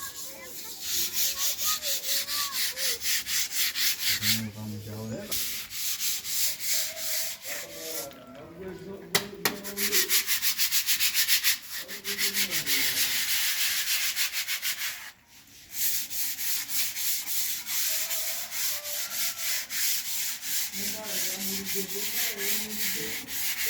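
Sandpaper rubbed by hand across a wall in quick, rhythmic rasping strokes, smoothing it before the final coat of paint. The strokes stop briefly a little after the middle.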